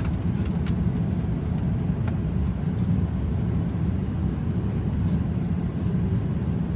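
Steady low rumble of a moving vehicle, even throughout, with a few faint clicks.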